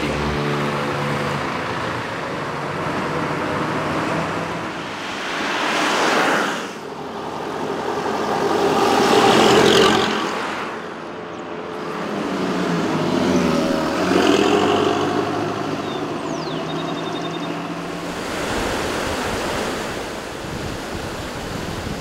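Road traffic: motor vehicles passing one after another, with three louder pass-bys where engine and tyre noise swells and fades away.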